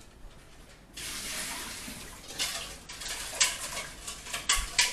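Kitchen tap turned on about a second in, water running steadily into a sink, with a few sharp clicks of dishes or pans near the end.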